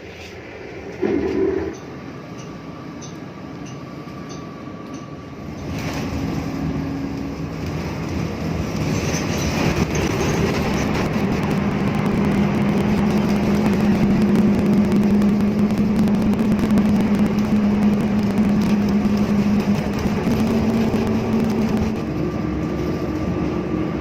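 A city bus running, with a steady low engine hum, rumble and rattling that grow louder about six seconds in. There is a short loud sound about a second in.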